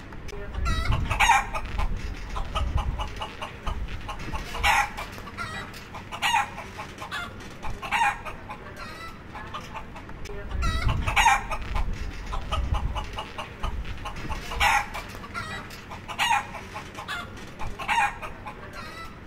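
Chicken sound effect: hens clucking in short calls every second or two, with a low rumble under them twice. The same stretch repeats about ten seconds in, as a looped ambience track.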